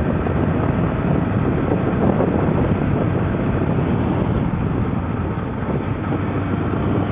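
Suzuki Bandit 1200S inline-four engine running steadily at cruising speed, under a constant rush of wind noise on the microphone.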